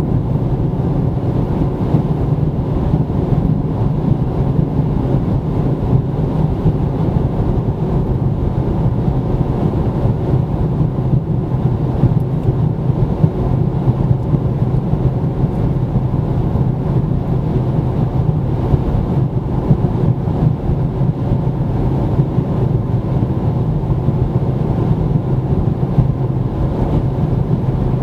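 A car driving at a steady pace: even tyre and road noise with a low engine hum that holds one pitch throughout.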